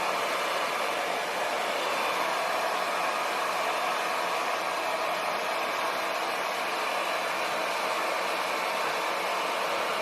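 Hair dryer blowing steadily, a constant airy rush without breaks.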